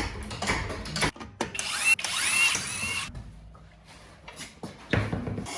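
Power tool whirring in three short bursts, with tool and metal clatter between them, as work starts on a car's suspension bolts.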